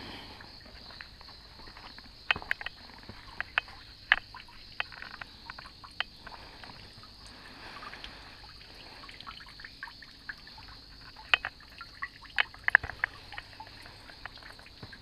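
Steady high-pitched chorus of night insects or frogs, with scattered sharp crackles and snaps of brush and twigs as someone pushes through garden vegetation.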